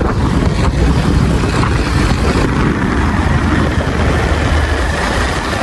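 Hero motorcycle riding along a dirt road: engine running under a loud, steady rumble of wind buffeting the microphone.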